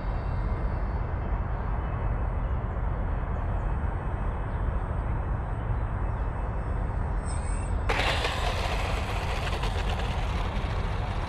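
Small electric RC warbird (FMS Zero 800mm) on its landing approach, its motor a faint whine that rises and falls with the throttle, under a steady low rumble of wind on the microphone. About eight seconds in the sound changes abruptly to a brighter hissing rush as the plane rolls out on the runway.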